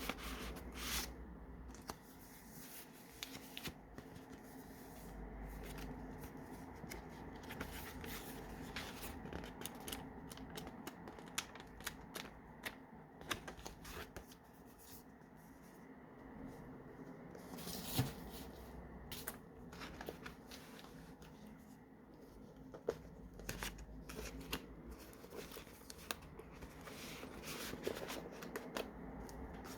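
Paper pages of a handmade junk journal being turned and handled: irregular crisp rustles and light taps, with one sharper tap partway through, over a faint steady hum.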